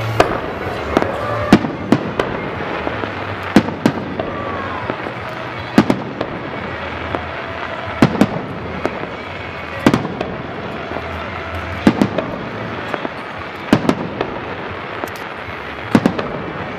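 Fireworks display: aerial shells bursting in sharp bangs at irregular gaps of about one to two seconds, over a continuous background noise.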